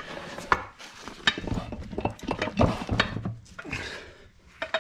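Handling noise: rustling with a run of light metallic clinks and knocks, as metal parts and the camera are moved around close to the engine. It thins out after about four seconds, with one last sharp knock near the end.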